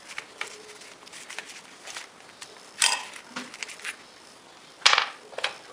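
A tap wrench and thread tap handled and set down on a steel plate: two short, sharp metallic clanks, about three and five seconds in, with faint small knocks between.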